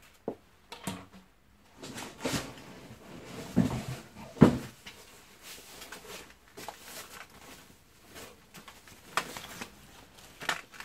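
Packaging and vacuum-cleaner parts being handled while unpacking: irregular rustling with scattered knocks, the loudest about four and a half seconds in.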